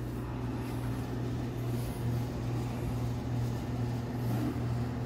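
A steady, low machine hum.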